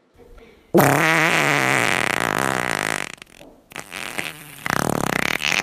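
A long, loud fart with a wavering, sagging pitch lasting about two seconds, followed after a short break by a second, rougher one.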